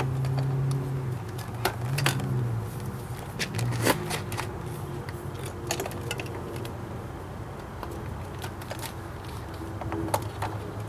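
Scattered light clicks and rustles of wires and plastic parts being handled and pulled back.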